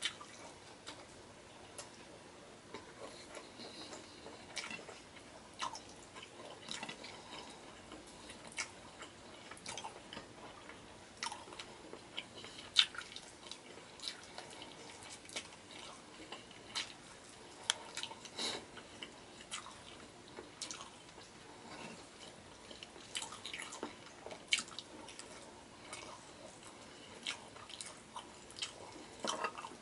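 Close-up mouth sounds of a person chewing tender braised beef and rice: wet chewing and lip-smacking with frequent short, irregular clicks.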